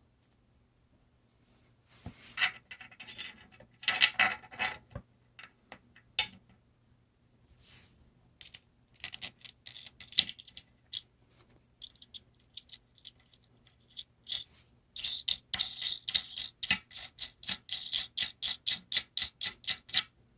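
Ratchet of a socket wrench clicking in a steady run, about four clicks a second, as a nut on the toilet tank is tightened. Before that, irregular scraping and clattering of tools and parts being handled.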